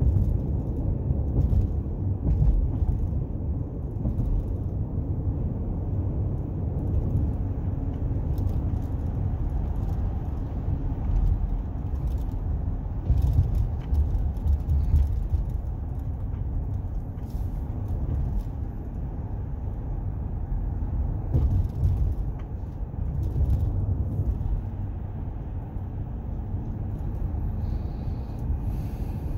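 Steady low road rumble and engine noise of a moving car, heard from inside the cabin, with a few faint ticks and rattles.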